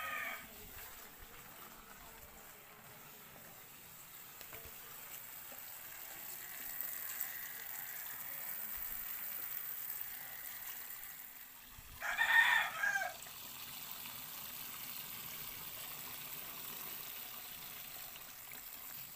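A rooster crowing once, a wavering call about a second long, roughly twelve seconds in, over a faint steady hiss.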